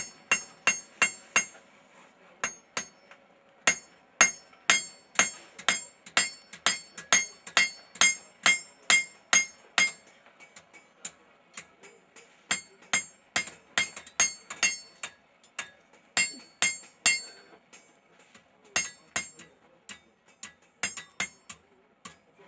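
Hand hammer striking red-hot knife steel on an anvil, about two to three blows a second, each with a bright metallic ring. The blows come in runs with short pauses between them.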